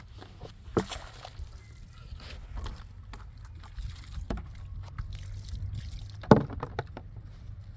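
Scattered knocks and scrapes from work at the site, with a sharp knock about a second in and a louder one near the end, over a steady low rumble.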